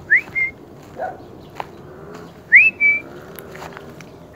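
Loud whistling: someone whistles three times, each a quick upward swoop into a short held note. A short lower call comes about a second in.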